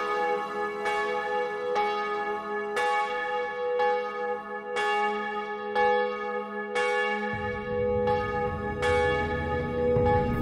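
Bronze church bell struck about once a second on the same note, each stroke ringing on into the next. A low drone comes in about seven seconds in.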